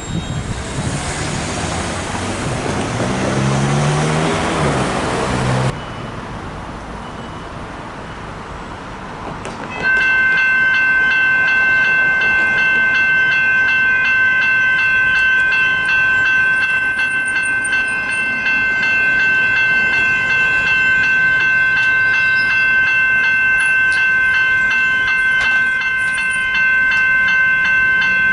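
A suburban electric train passing over the crossing, with wheel noise and traction motor pitch sliding, cut off abruptly about six seconds in. About ten seconds in, level crossing warning bells start up suddenly and ring on steadily as a ringing chord.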